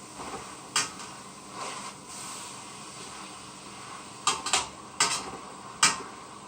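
A meat masher knocking and scraping against a large cooking pot while breaking up cooked ground beef and turkey. There is one sharp clack about a second in, soft scraping after it, then several sharp clacks in quick succession, the loudest near the end.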